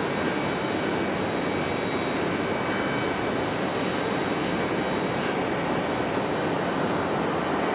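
Boeing 767 twin-engine jet airliner on final approach, a steady engine rumble with a faint high whine over it.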